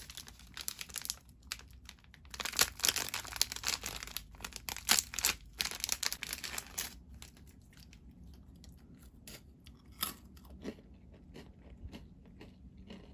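Plastic cracker wrapper crinkling and tearing open, a dense run of crackles for the first several seconds, then a few scattered crackles and a single knock about ten seconds in.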